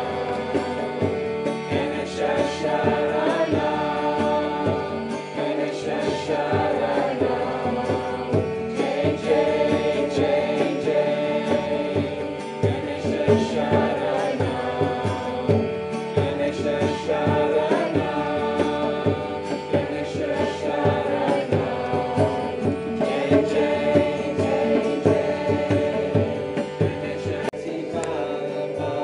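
Devotional mantra chant sung by a woman to her own harmonium, whose held drone runs steadily beneath the voice, with a two-headed barrel drum played by hand keeping a quick rhythm.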